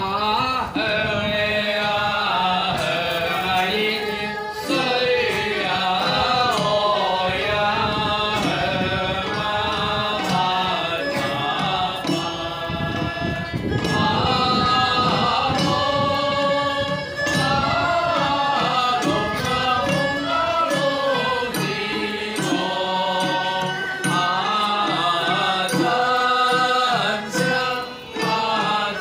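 Taoist ritual hymn chanted over instrumental music: the sung verses of the first offering in a temple ceremony.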